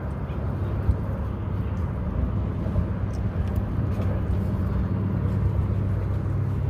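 Wind buffeting the microphone: a steady low rumble with a few faint clicks.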